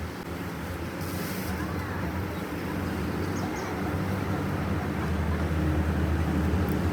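Machinery running with a steady low hum and a wash of noise, slowly growing louder.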